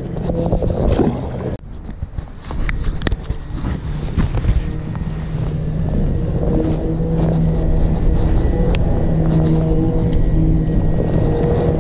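A boat's motor running steadily with a low, even hum that grows a little stronger partway through, with a few sharp clicks over it.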